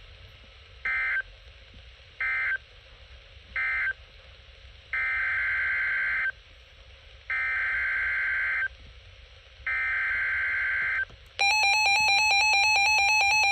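Emergency Alert System SAME data bursts: three short buzzy bursts of digital tones, the end-of-message code closing the first warning, then three longer bursts, the header of the next alert, with short gaps between them. About eleven seconds in, a louder, steady attention tone starts.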